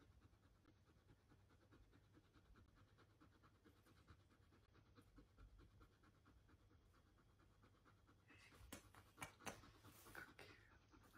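Adult Siberian husky panting, faint and steady. A few louder clicks and rustles come near the end.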